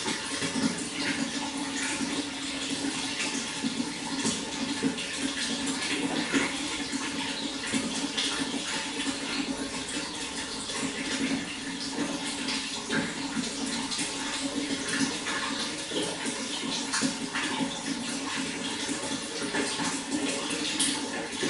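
Running water, a steady continuous splashing flow.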